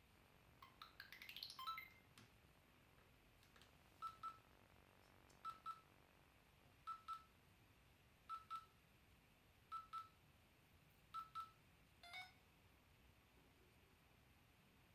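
Electronic beeps from a LEGO Mindstorms Robot Inventor hub while it connects over Bluetooth. A quick rising run of tones about a second in is followed by six pairs of short beeps, one pair about every second and a half, and a short chime near the end.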